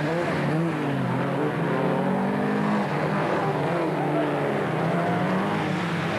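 Several folkrace cars' engines revving hard as they race past close by, a Saab among them, the engine notes rising and falling with throttle and gear changes and overlapping one another.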